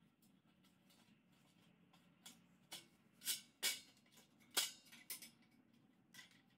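Light handling of metal parts: a steel bracket and an angle grinder clicking and scraping against a steel sheet as they are fitted together. There are about eight short clicks and scrapes, the loudest just past the middle.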